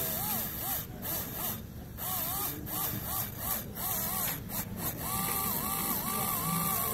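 Dental handpiece with a small wheel-shaped diamond bur grinding a rest seat into the canine of a stone cast. Its whine dips in pitch again and again as the bur bites into the stone and recovers between cuts, then runs steadier near the end.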